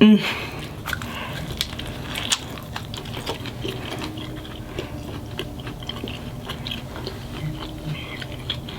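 Close-miked eating: biting into and chewing a California burrito of carne asada, french fries and cheese, a stream of small wet clicks and smacks.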